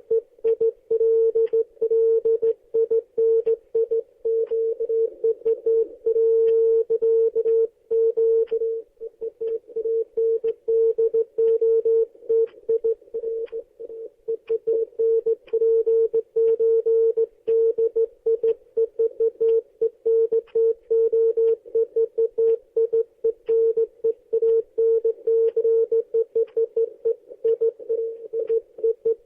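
Morse code sent as a single mid-pitched beep tone, keyed continuously in a fast run of short dots and longer dashes, with faint clicks as each element switches on and off.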